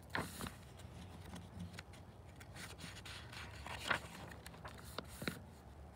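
A paper page of a picture book being turned by hand: faint rustling and sliding of paper with a few soft scrapes, loudest about four seconds in.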